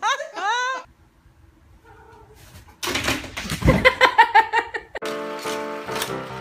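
A person's excited, laugh-like voice that stops within the first second, then a near-quiet stretch, then more high-pitched voices. From about five seconds in, music with a steady beat.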